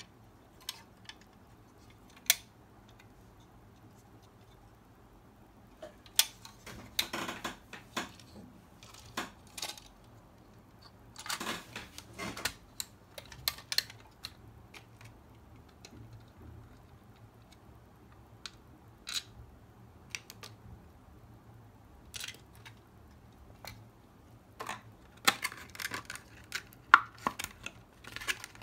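Scattered clicks, taps and light knocks from handling a 1:24 die-cast model car's metal body and plastic chassis, in short clusters with quiet gaps between. Near the end a small plastic bag rustles and crinkles among the clicks.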